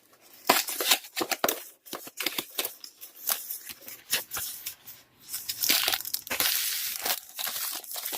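Cellophane wrap being torn and crinkled off a cardboard box: an irregular run of sharp crackles, densest and loudest for a couple of seconds past the middle.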